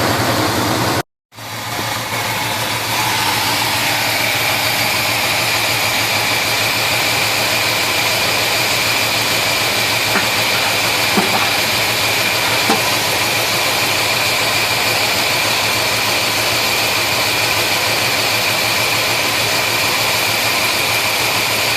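Small-block Chevy 350 V8 running steadily with a dense exhaust and mechanical noise and a faint high steady whine. It cuts out briefly about a second in. The engine is misfiring, with number one cylinder dead: its plug stays wet and the cylinder shows zero compression.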